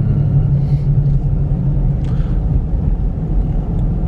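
Steady low rumble of a car driving, heard from inside the cabin: engine hum and road noise, without a break.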